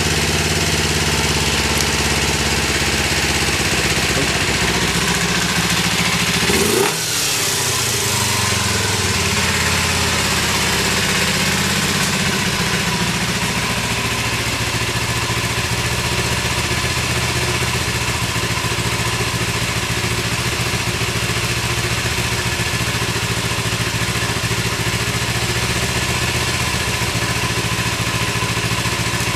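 Kawasaki Eliminator 250SE motorcycle engine idling steadily, its exhaust blipped once about six to seven seconds in, then settling back to idle. It runs with no abnormal noises.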